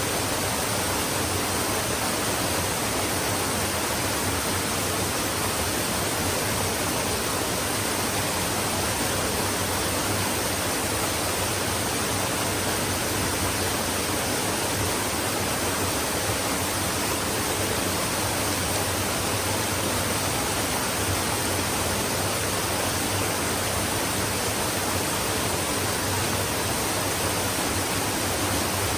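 Flowing stream: a steady, even rush of running water with no breaks.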